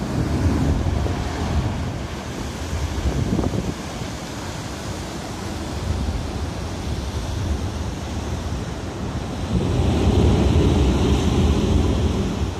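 Sea waves surging and breaking against a rocky shore, with wind buffeting the microphone. The rush of water grows louder for a couple of seconds near the end.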